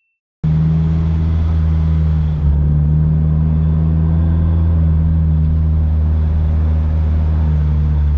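Nissan SR20DET turbo four-cylinder engine of an S14 240SX running at a steady speed, a loud, even low drone with no revving. It cuts in abruptly about half a second in.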